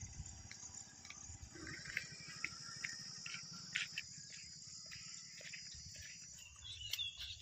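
Steady high-pitched insect chorus, like crickets or cicadas, with scattered soft footfalls on a dirt path.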